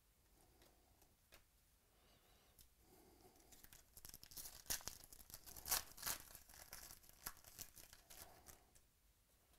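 Foil wrapper of a football trading-card pack being torn open and crinkled by hand: a dense run of crackling rips from about three and a half seconds in, loudest in the middle and fading out near the end. A few faint clicks come before it.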